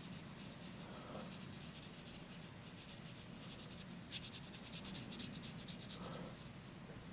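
Faint scrubbing of a wet watercolour brush on textured watercolour paper as it dissolves paint on the stone: a quick run of short scratchy strokes from about four seconds in to about six and a half.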